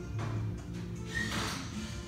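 Background music with sustained low notes and a brief swish near the middle.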